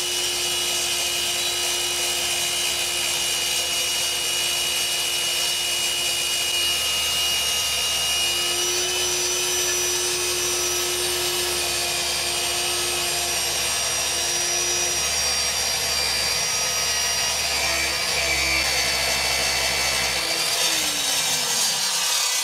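Electric circular saw running steadily as its blade cuts into a bowling ball. Near the end the motor is switched off and winds down, its pitch falling.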